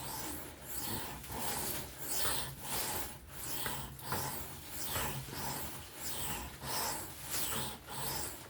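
3V steel knife blade stroked back and forth by hand on a sharpening stone, a steady rasping rhythm of a little over one stroke a second.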